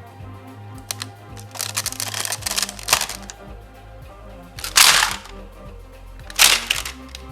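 Background music with scattered clicks and snaps of plastic toy robot parts being handled and fitted together, including two louder, sharper snaps about five and six and a half seconds in.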